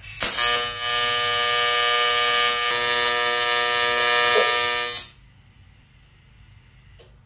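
TIG welding arc buzzing steadily while an AN oil-drain fitting is welded onto a Triumph motorcycle's aluminium engine case; the arc runs for about five seconds and then cuts off.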